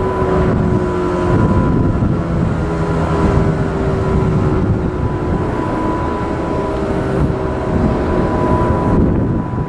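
Wind buffeting the microphone over the Federal Signal 508-128 rotating siren coasting down after its test. Its tone is faint and slowly falling, and it swells and fades every few seconds as the rotating head turns.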